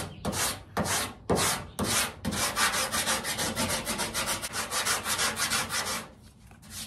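Hand sanding of cured body filler with 80-grit paper on a long sanding block, rough-shaping the filler to the panel's contour. It starts with separate long scraping strokes, about two a second, then quick short back-and-forth strokes for about three and a half seconds, and stops about a second before the end.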